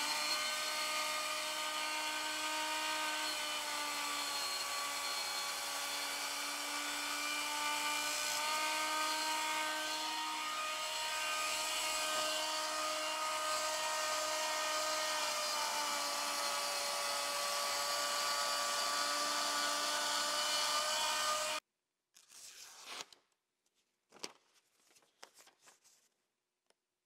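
Work Sharp electric belt knife sharpener running with a super-fine stropping belt while a large knife blade is drawn freehand across it: a steady motor whine that shifts slightly in pitch as the blade presses on the belt. It cuts off abruptly about 21 seconds in, and a few short rasps of a sharpened knife edge slicing paper follow.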